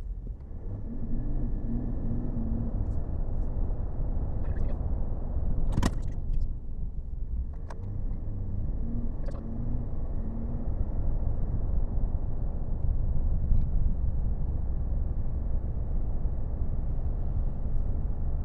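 Steady low in-cab rumble of a GMC Sierra AT4 pickup's 3.0-litre Duramax diesel and road noise while driving, with the engine in a particulate-filter regeneration. There are a few light clicks, the sharpest about six seconds in.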